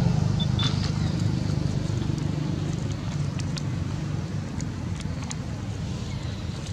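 A low, steady engine-like rumble that slowly fades, with light ticks and rustles of a baby macaque walking over dry leaves and gravel. Two brief high chirps come about half a second in.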